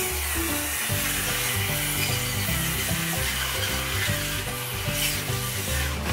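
Handheld electric circular saw running and cutting through an old wooden floorboard, a steady harsh cutting noise, over background music with a stepping bass line.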